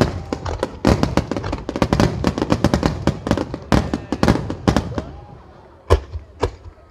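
Barrage of aerial firework shells bursting: dozens of sharp bangs and crackles in quick succession for about five seconds. The bangs then thin out to a few single loud booms near the end.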